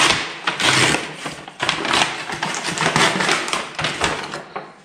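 Paper gift wrapping being torn open and rustled by hand: an irregular crackling, loudest in the first second and thinning out toward the end.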